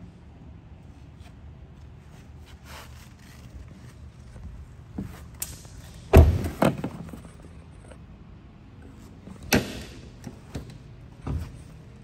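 A car door is shut with a heavy thump about six seconds in. A second sharp knock follows about three seconds later, and a few lighter knocks sound around them.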